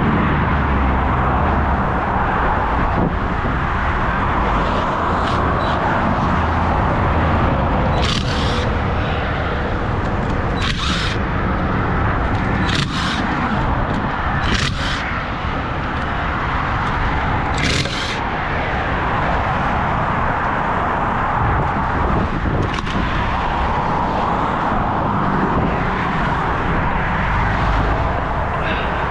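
Highway traffic going by steadily, cars and trucks swelling and fading as they pass, with a low rumble. Five short, high-pitched bursts cut through it about eight, eleven, thirteen, fifteen and eighteen seconds in.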